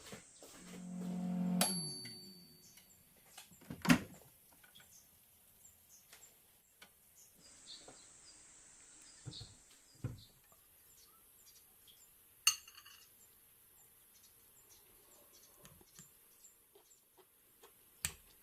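Kitchen handling sounds: a brief hum that cuts off with a sharp click, then scattered light clinks and taps of dishes and utensils, with a few sharper knocks.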